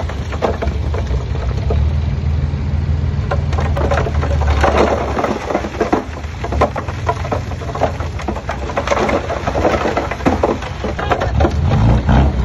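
Diesel engine of heavy earthmoving machinery running with a steady low rumble, under a dense crackle like stone and soil being crunched. The engine grows louder near the end.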